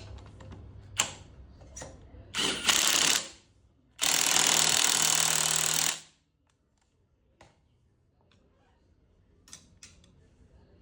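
Workshop tool noise: a few sharp clicks and knocks, then two loud bursts of a power tool, the first about a second long and the second about two seconds, cut off abruptly, followed by faint ticks.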